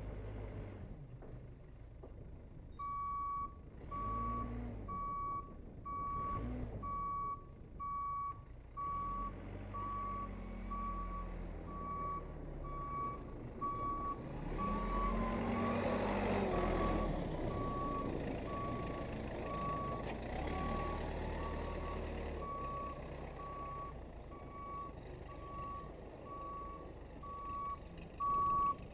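Case 580C backhoe's engine revving up and dropping back several times, loudest about halfway through, while its backup alarm beeps about once a second from about three seconds in.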